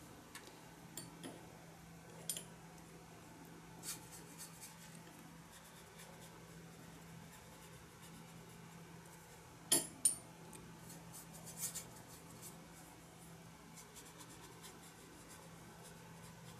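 Faint, scattered light taps and soft strokes of a watercolour brush dabbing on paper and working paint in a plastic palette, the sharpest tap a little under halfway through, over a steady low hum.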